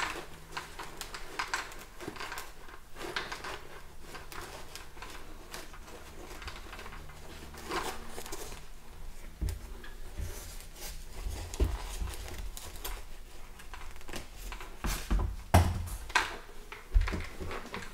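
Hands working a foam cheek pad loose from inside a full-face motorcycle helmet: fabric and foam rustling with irregular small clicks and knocks against the helmet shell, a few louder knocks near the end.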